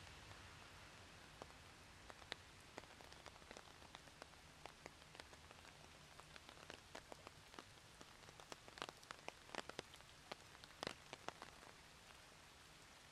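Rain, with single drops landing in sharp, irregular ticks over a faint steady hiss; the drops come thicker and louder about two-thirds of the way through.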